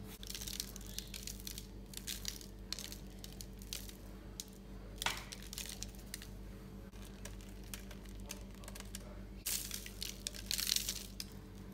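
Baking paper on a metal tray crinkling and rustling in irregular bursts under hands pressing dough, loudest near the end, over a steady low hum.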